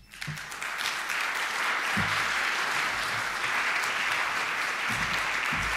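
Audience applauding, swelling up quickly at the start and then holding steady, with a few dull low thuds underneath.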